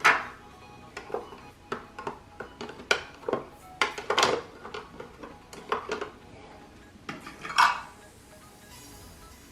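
Small cosmetic and toiletry containers being set down and shuffled around in a drawer: a string of irregular clicks and clinks, loudest at the start and again near the end, then stopping.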